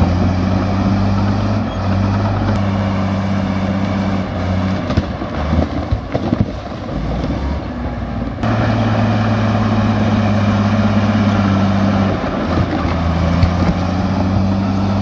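Komatsu crawler bulldozer's diesel engine running under load as it pushes a pile of rocks, a steady low drone. The drone fades into rougher noise for a few seconds in the middle and comes back suddenly.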